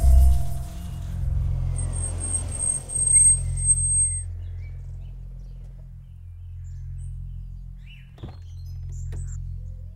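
Horror-film soundtrack: mallet-percussion music dies away in the first second, leaving a low rumbling drone. A thin, high, steady tone sounds for about two seconds, and faint bird chirps and a couple of small clicks come near the end.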